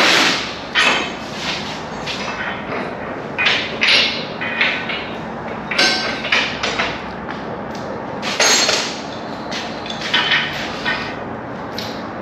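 Irregular metal clanks and knocks, about one a second, some with a short ring, as steel parts of a four-post car lift are unpacked and handled.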